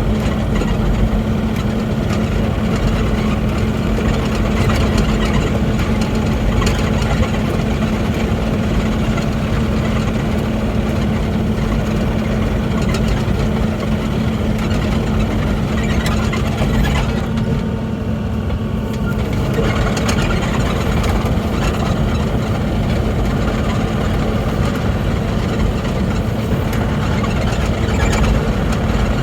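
Mini excavator's diesel engine running steadily with a constant low hum; its higher sound briefly drops away about two-thirds of the way through.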